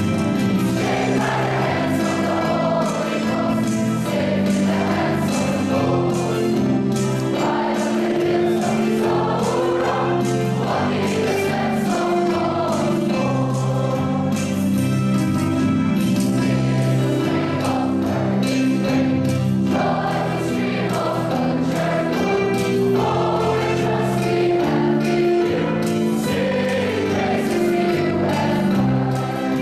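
A large mass of voices — students, former students and teachers — singing a school anthem together as a choir over steady held accompaniment chords.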